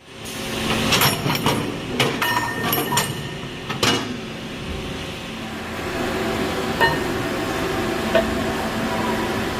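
Automatic pipe-loading line for CNC machines running: metal pipes clank and clink sharply several times in the first few seconds over a steady machine hum, then the hum goes on with a couple of single clicks.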